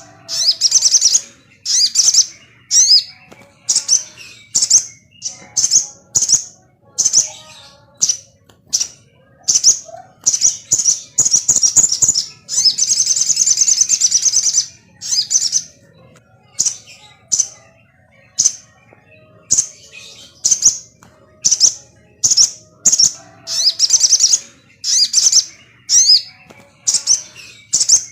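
A sogon bird, a small songbird kept as a cage bird in Indonesia, calling in short, sharp, high chirps repeated about once or twice a second. About twelve seconds in, it breaks into a longer rapid chattering trill lasting some three seconds.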